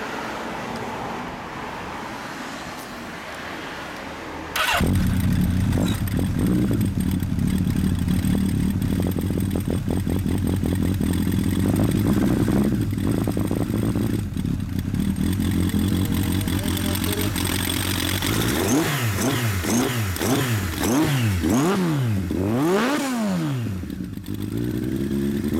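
Suzuki GSX1100S Katana's air-cooled inline four breathing through a hand-bent 4-into-1 exhaust with a straight-through silencer: it fires up about four and a half seconds in and idles steadily. In the last third it is blipped six or seven times in quick succession, the revs rising and falling sharply each time.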